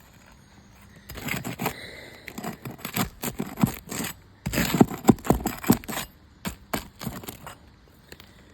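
Roof snake scraping and clicking against asphalt shingles and nails as it is worked underneath to pull the nails, in a run of irregular scrapes and sharp knocks that is loudest in the middle.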